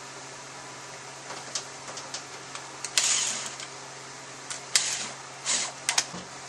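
Irregular metal clicks and short rattles of steel bolts and a tool being handled and set into an aluminium Toyota A750E transmission valve body. The loudest clatter comes about three seconds in, with a few more near the end. A steady fan hum runs underneath.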